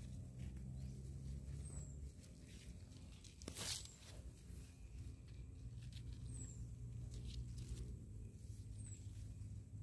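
Ground-cherry plants' leaves and stems rustling as a hand parts them and picks the fruit, with scattered small crackles and a louder brush or snap about three and a half seconds in, over a low rumble. A faint, short, high falling chirp recurs every couple of seconds.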